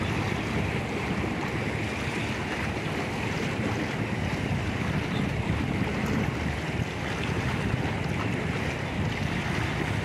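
Wind blowing on the microphone over choppy water: a steady, rumbling hiss without any distinct events.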